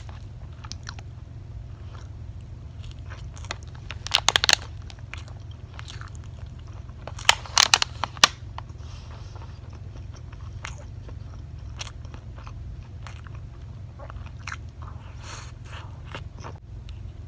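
Close-miked eating of soft cream sponge cake: mouth and chewing sounds, with a plastic spoon scraping and clicking against a thin clear plastic container. The loudest parts are two short flurries of crackling clicks, about four seconds in and again around seven to eight seconds in. A low steady hum runs underneath.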